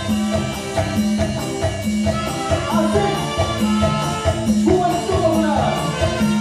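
Salsa band playing a live instrumental passage: trumpets over keyboard piano, electric bass and timbales, with a steady percussion beat.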